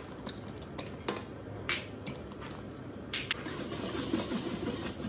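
Wire whisk clinking against a stainless steel bowl a few times, then whisking batter steadily for the last second or so.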